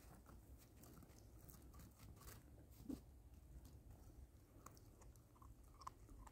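Faint crunching and crackling of a Great Pyrenees puppy chewing on a bare twig: many small irregular snaps, a slightly louder one about halfway through.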